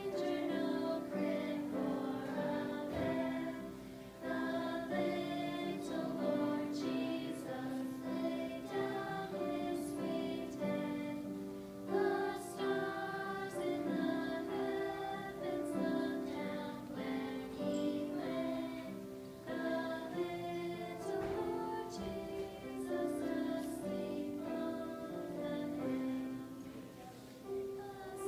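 A small group of children and young women singing a Christmas carol together.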